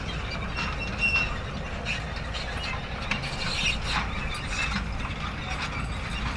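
A mechanical device running, with irregular clicking and squeaking over a steady low rumble.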